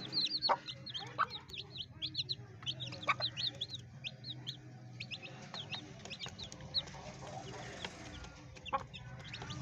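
Baby chicks peeping: many short, high chirps, one after another, thickest in the first half and thinning out later, over a faint low hum.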